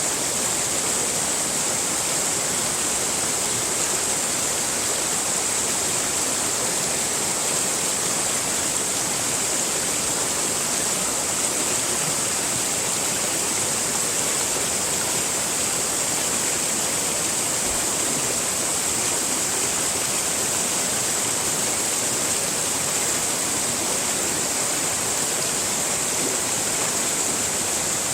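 Continuous rushing water: a steady, unchanging hiss, strongest in the high treble, used as white noise.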